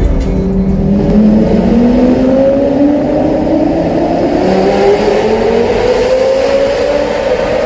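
Lamborghini Gallardo V10 with a custom straight-piped X-pipe exhaust, accelerating under load. Its pitch drops at the very start, as at an upshift, then climbs slowly and steadily.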